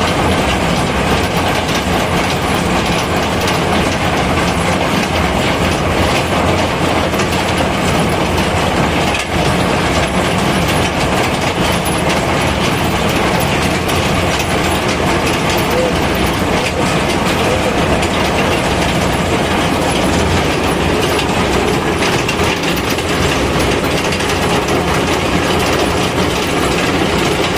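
Submersible water pump motor running steadily: a continuous loud mechanical rattle over a low hum.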